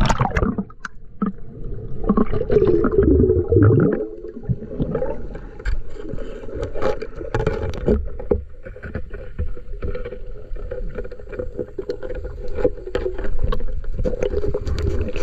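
Muffled underwater sound picked up by an action camera in its waterproof housing as a snorkeler dives to the reef: a low rushing of water with gurgling, a steady hum, and scattered clicks and knocks.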